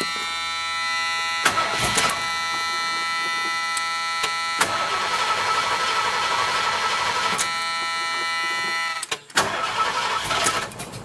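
A 1979 Ford Bronco's V8 being cranked by the starter and turning over without catching, in a short burst about a second and a half in, a longer stretch from about four and a half to nine seconds, and once more near the end: a hard start after the truck has sat unused for a long time. A steady high warning tone sounds underneath until about nine seconds in.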